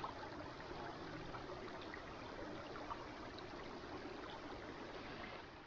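Running water, a steady babbling stream with small splashes, fading out near the end.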